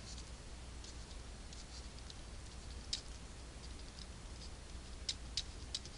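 Faint scattered ticks and light scratches of a pen stylus on a graphics tablet as a word is handwritten, over a faint low steady hum.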